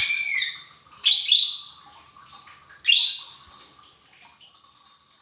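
Cucak ijo mini leafbird calling: three loud phrases of high, down-arching notes at the start, about a second in and about three seconds in, then only faint scattered notes.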